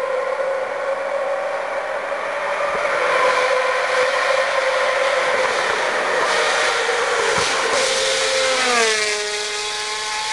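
Race car engine running at high, steady revs, its note growing a little louder over the first few seconds; about nine seconds in its pitch falls and then holds at the lower note.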